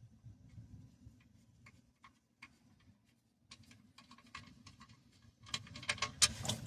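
Light metallic clicks and ticks from hand tools being worked on a car, scattered at first, then coming quicker and louder near the end.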